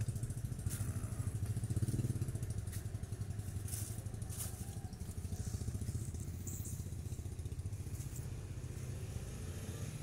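A small engine running steadily at idle, a low pulsing hum, with a few faint clicks and crackles over it.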